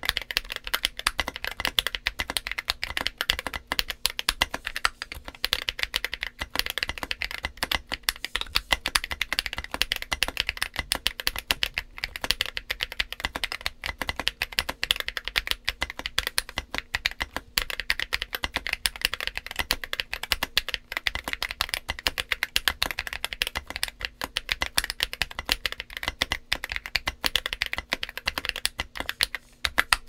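Continuous fast typing on a Drop ALT High Profile mechanical keyboard fitted with Akko Lavender switches and SA-profile Oblotzky keycaps: a dense, unbroken stream of keystrokes, several a second.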